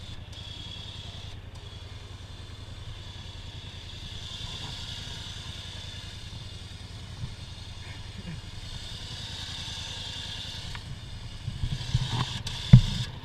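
ATV engine idling steadily while an electric winch on the front pulls in synthetic line, its whine swelling twice. A loud thump comes near the end.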